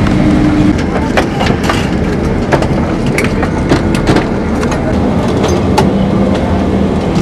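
Cabin noise of a Boeing 767-300ER taxiing after landing: a steady rumble of engines and rolling gear. Irregular clicks and knocks sound through it, and a steady hum drops away about a second in and comes back in the second half.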